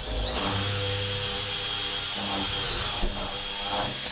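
Cordless drill running at full speed, boring into the edge of a door for a latch: a steady high whine that dips briefly about three seconds in and stops suddenly at the end.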